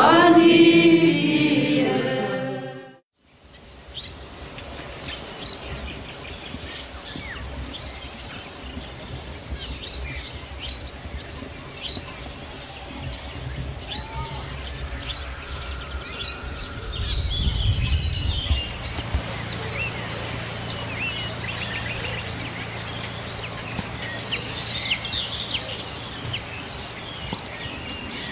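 A Church Slavonic liturgical chant fades out about three seconds in. Outdoor ambience follows, with scattered bird chirps throughout, a brief low rumble past the midpoint, and a faint steady low hum after it.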